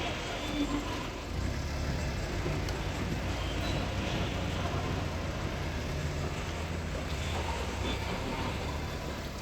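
Heavy diesel machinery engine running steadily with a low rumble.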